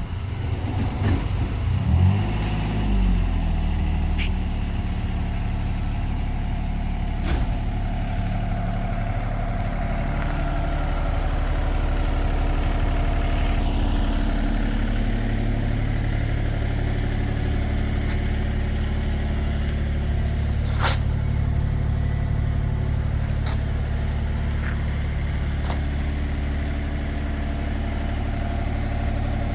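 Takeuchi mini excavator's diesel engine running, its pitch rising and falling for the first few seconds, then holding steady, with a few sharp knocks along the way.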